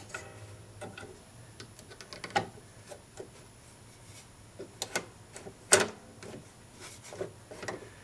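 Scattered light clicks and taps as the parts of a 1951 RCA Victor 45-EY-4 record changer mechanism are handled and moved by hand. The sharpest click comes about three-quarters of the way through.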